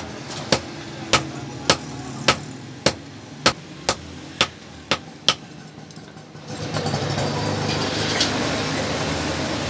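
A hand hammer strikes red-hot iron on a steel block anvil about ten times, just under two blows a second, forging the bar. The blows stop, and from about six and a half seconds in a steady rushing noise with a low hum comes from the coal forge as the fire flares.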